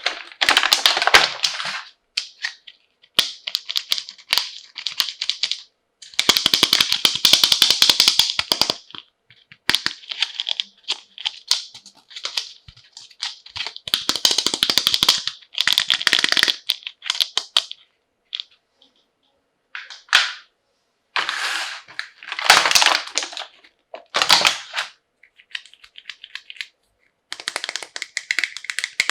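Toy doctor-kit unboxing handling sounds: plastic packaging crinkling and small plastic toy parts clicking and rattling. They come in bursts of dense, rapid crackle lasting a second or few, with short silent pauses between.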